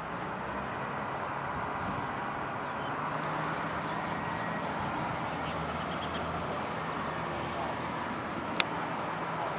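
E-flite Mini Ultra Stick RC plane's electric motor and propeller droning steadily in flight, with a single sharp click near the end.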